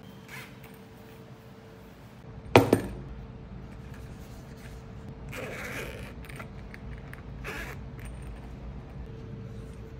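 Handling of a small zippered hard-shell case: a sharp double knock about two and a half seconds in, then scraping and rustling as the case is turned over in the hands.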